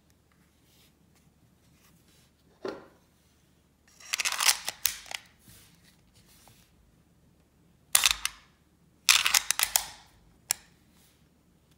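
Clicks and clacks from an H&K P7 M13 9mm pistol being handled and its parts worked by hand: a single knock, then three short bursts of rapid clicking and one last sharp click.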